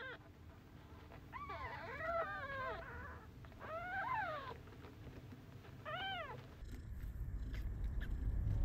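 Newborn British shorthair kittens mewing: thin, high cries that rise and fall in pitch. One comes at the start, several overlap from about one to three seconds in, and single cries follow around four and six seconds. A low rumble builds near the end.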